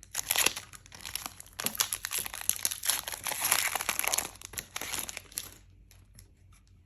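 Plastic foil trading-card booster pack crinkling as it is torn open and handled, a dense crackle that stops near the end.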